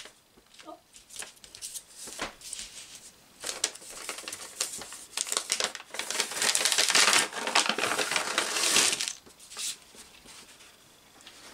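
Wrapping paper being unwrapped and crinkled by hand, loudest from about six to nine seconds in, with scattered small clicks and taps before it.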